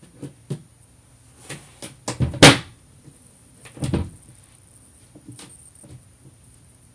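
Knocks and thumps of things being handled and moved while someone rummages for an item. The loudest knock comes about two and a half seconds in, with another near four seconds and fainter taps after.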